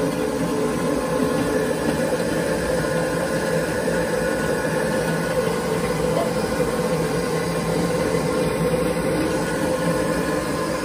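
Electric açaí pulping machine running steadily, its motor turning the beater inside the stainless steel drum to work the açaí berries into pulp.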